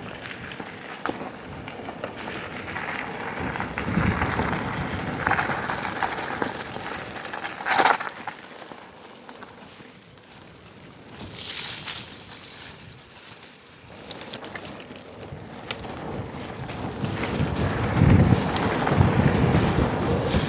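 Wind buffeting a chest-worn DJI Mic Mini wireless microphone in gusts, with mountain-bike riding noise underneath and one sharp knock about eight seconds in.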